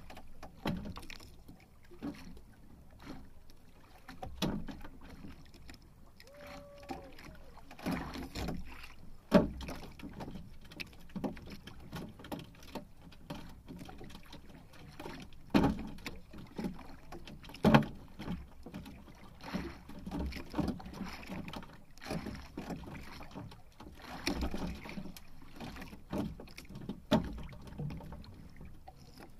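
Water lapping against the hull of a small outrigger fishing boat, with wind on the microphone and scattered knocks and thumps on the boat. A brief squeak about six seconds in.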